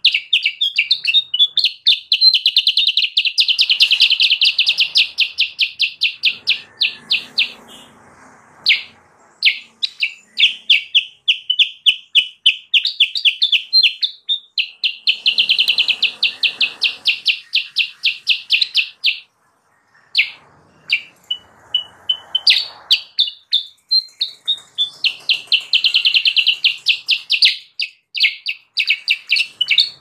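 Kutilang sutra bulbul calling in long, fast runs of sharp, evenly repeated chirping notes, several per second. The runs are broken by a few short pauses.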